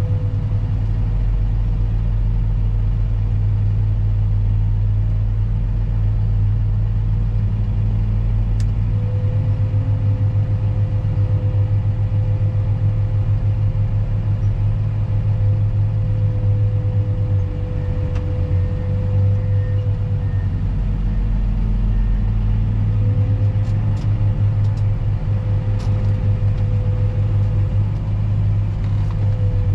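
Heavy diesel earthmoving machine running steadily, a deep rumble with a steady whine above it and a few faint clicks.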